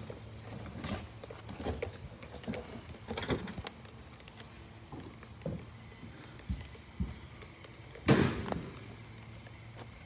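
Scattered knocks and taps of siding panels being handled and set against a house wall, with one louder clunk about eight seconds in, over a faint steady hum.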